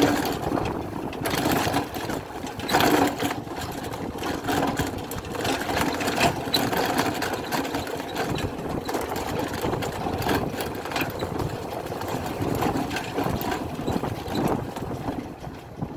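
The 250 cc single-cylinder two-stroke engine of a 1967 Pannonia P10 motorcycle, running as the bike is ridden along, with a fast rattling buzz whose loudness swells and dips.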